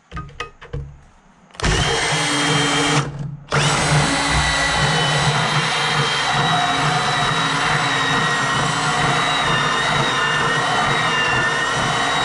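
Milwaukee cordless portable band saw running and cutting through a steel mower deck bracket, a steady whine with a few high tones over it. A few clicks come first, then the saw starts about a second and a half in, stops briefly after about three seconds, and runs on.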